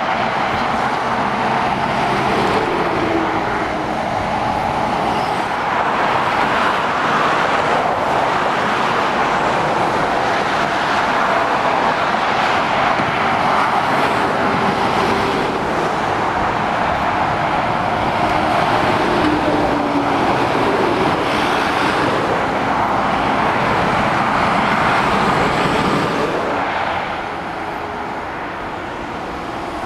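Steady traffic on a main road: lorries and cars passing below, a continuous rush of tyre noise with faint engine tones sliding in pitch as vehicles go by. It gets somewhat quieter for the last few seconds.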